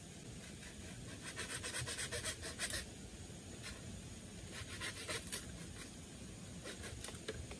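Quick scraping strokes on a bamboo pole at a frame joint, about ten a second in a run between one and three seconds in, a shorter run around five seconds, then a few single clicks.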